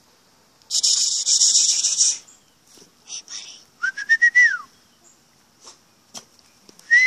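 A harsh, rattling sound about a second and a half long, then a whistled note that rises and falls, and near the end a steady high whistle begins.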